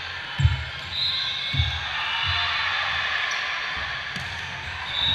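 A volleyball bouncing on a hardwood gym floor: four dull thumps at uneven gaps of about a second, over background chatter in a large hall.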